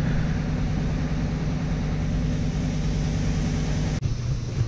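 Steady low hum of a running motor, unchanging in pitch, with a brief drop about four seconds in.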